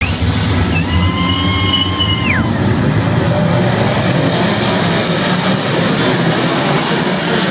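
Speedway midget cars racing: a steady engine noise, with one engine's high note held and then falling away sharply about two and a half seconds in.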